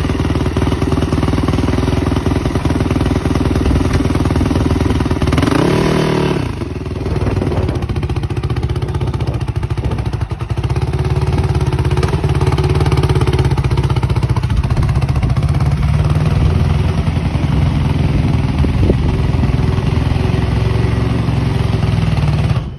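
2006 Yamaha YZ450F's 450 cc four-stroke single-cylinder engine running steadily, with a brief rise in pitch about six seconds in. The engine sound cuts off suddenly near the end.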